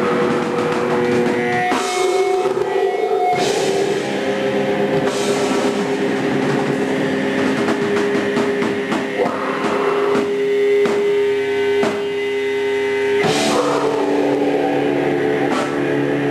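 Live thrash-punk band playing loud: distorted electric guitar holding long sustained notes over drums, with cymbal crashes every few seconds.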